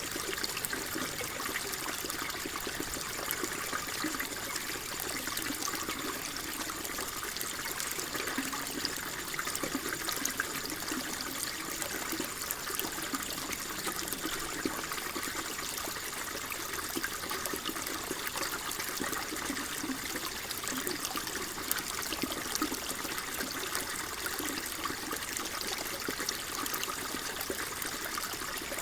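Water flowing and trickling steadily, an even babbling with no breaks.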